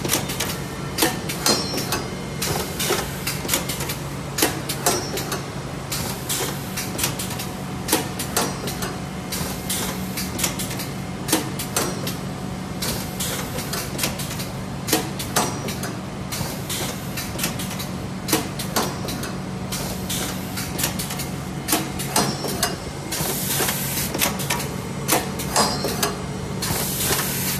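Lensh LS 7051B automatic rib-making lockstitch machine running: a steady low hum under frequent, irregular clicks and clacks from its mechanism.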